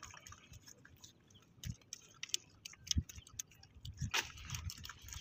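Scattered light clicks and ticks at an irregular pace, with a few soft dull thumps about two, three and four seconds in.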